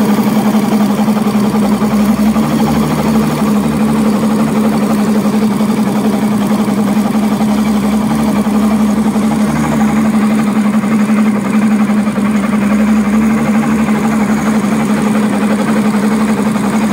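Evinrude E-TEC 150 two-stroke V6 outboard running steadily with its cowling off. The engine has a throttle position sensor problem.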